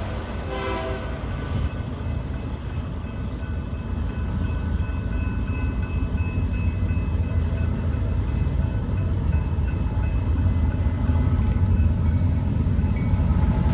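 Train rolling past on the track: a steady low rumble that grows slightly louder, with the tail of a horn fading out about a second in.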